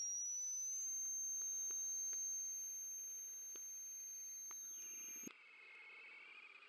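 A high, thin electronic tone that glides upward, then holds steady and cuts off suddenly about five seconds in, with a few faint clicks along the way. After it, fainter wavering tones carry on.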